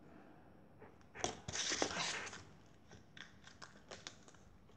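Thin clear plastic slime tub being handled: a loud crinkling rustle about a second in that lasts about a second, then a string of small clicks and crackles.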